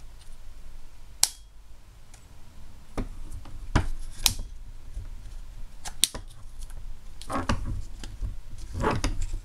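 Clicks and handling noise from a baitcaster fishing reel as its side plate is opened: about five sharp separate clicks in the first six seconds, then short rustling scrapes near the end.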